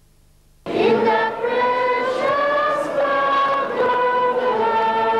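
A choir singing together in held, slowly moving notes, cutting in suddenly about a second in after near silence.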